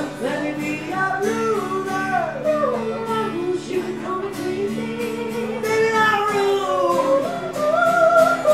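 A man and a woman singing together over two strummed acoustic guitars, a live acoustic duo.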